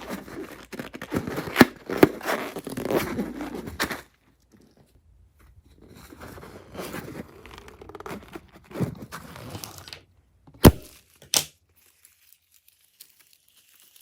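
Slime being handled and worked by hand: a dense run of crackly, sticky handling noise for about four seconds, softer handling later, then two sharp knocks near the end.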